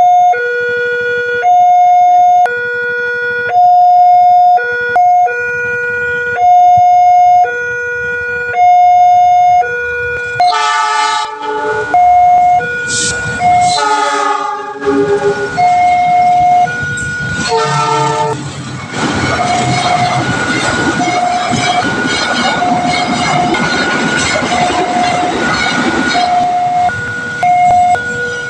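Railway level-crossing warning alarm sounding a loud two-tone signal, alternating high and low about once a second. About ten seconds in, a train horn sounds several chord blasts, and after them a train passes with a steady rumble of wheels on the rails while the alarm keeps going.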